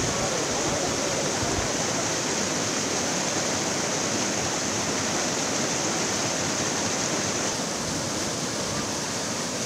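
Muddy floodwater rushing steadily across the ground and churning around tree trunks: a continuous, even rush of water.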